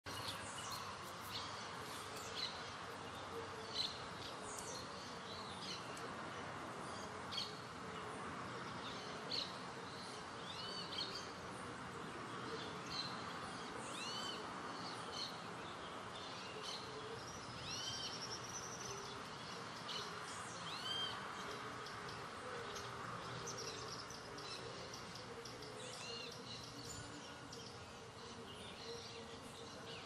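Steady hiss of rain falling on leafy plants, with birds calling over it: short sharp chirps throughout and a few arched, rising-and-falling calls in the middle.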